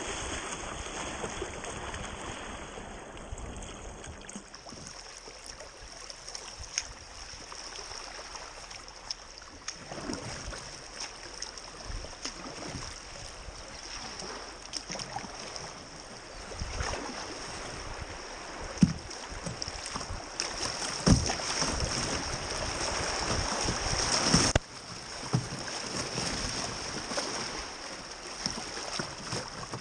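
River water rushing and splashing against a kayak's hull as it runs through fast, choppy water, with scattered sharp knocks and splashes. The rushing swells over the second half and drops off suddenly about five seconds before the end.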